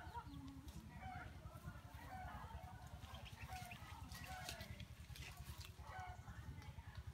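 Domestic chickens clucking faintly, short calls repeating every second or so, over a steady low rumble.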